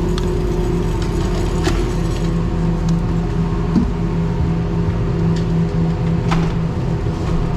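Ski-resort gondola running: a steady mechanical hum with two faint clicks, one a couple of seconds in and one near the end.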